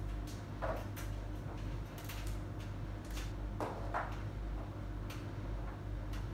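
Small clicks and knocks, with two brief rustles about a second in and about four seconds in, as laundry supplies such as a detergent box are handled at a washing machine, over a steady low hum.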